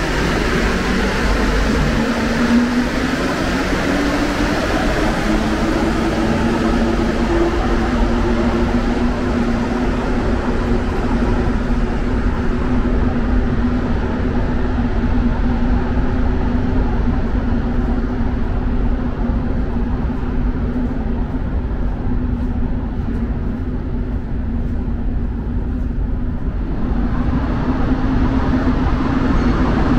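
Rubber-tyred Montreal metro train running, a steady loud rumble with a motor tone that rises in pitch over the first few seconds and then holds. The hiss above it thins out in the middle and comes back near the end.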